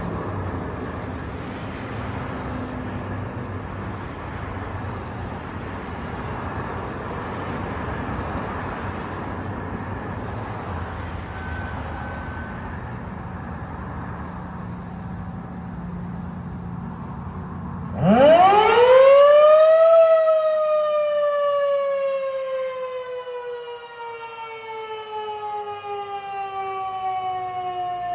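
Outdoor warning siren being tested. After a long stretch of steady background noise, the siren starts about two-thirds of the way in. Its pitch rises quickly for about two seconds, then slides slowly and steadily down as it winds down.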